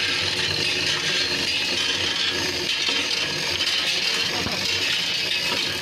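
Hoist chain rattling and clinking with rubbing knocks as a heavy speaker cabinet is lowered on a hand chain hoist, over a steady hiss of background noise.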